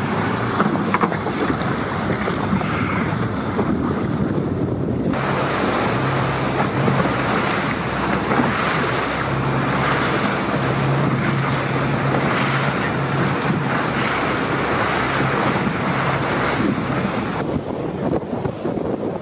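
Wind buffeting the microphone over choppy water splashing and rushing past a boat's hull. From about five seconds in until near the end the wind noise turns hissier and a steady low motorboat engine hum joins in.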